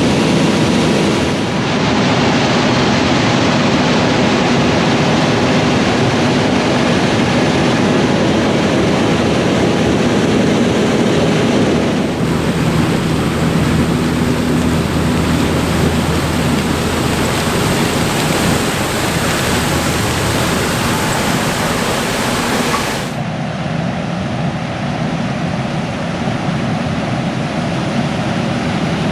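Heavy farm machinery running steadily at corn harvest: a loud engine hum under a wide rush of noise. The sound changes abruptly about a second and a half in, again about 12 seconds in, and again about 23 seconds in, where the high hiss drops away.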